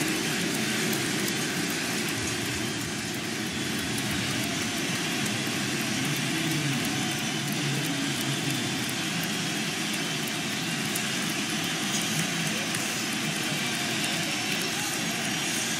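Baseball stadium crowd cheering steadily after a home run.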